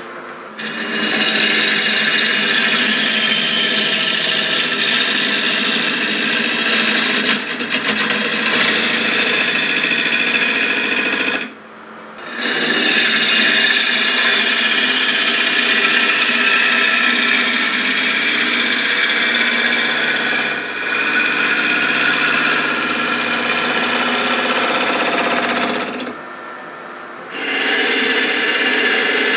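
A power tool working wood: a steady, loud rasping motor noise that drops out briefly twice, about 11 seconds in and again near the end.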